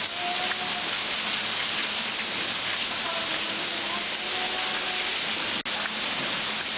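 Heavy rain falling steadily and splashing onto flooded concrete, with a momentary dropout in the sound about five and a half seconds in.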